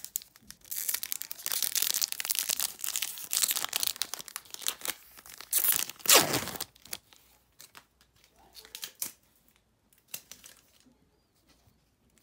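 Foil wrapper of a Magic: The Gathering Kaldheim set booster pack being torn open by hand and crinkled: a dense run of tearing for about four seconds, the loudest rip about six seconds in, then scattered crinkles that die away.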